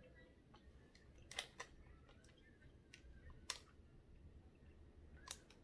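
Near silence: room tone with a few faint, scattered clicks from small objects being handled.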